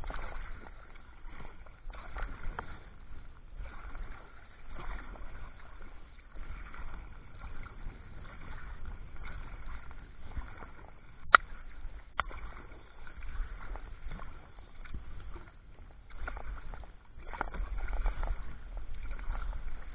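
Wooden Greenland paddle dipping and splashing beside a sea kayak in a rough stroke rhythm, with two sharp knocks a little over halfway through.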